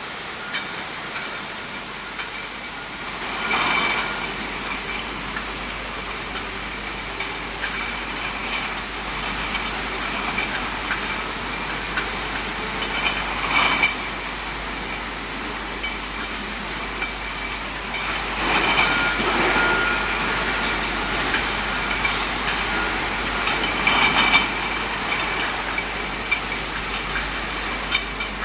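Bottle decapping and washing machinery running steadily, with a faint constant whine and louder surges of noise every several seconds.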